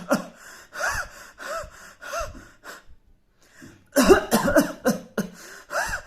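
A person coughing in two harsh bouts, the second about four seconds in, with short wheezing gasps for breath between and after the coughs. This is a demonstrated cough that runs into asthma-like breathlessness, which a homeopath presents as typical of Cassia sophera.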